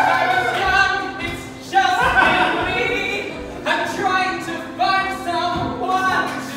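A man singing in long held notes, in phrases of a second or two with short breaks between them.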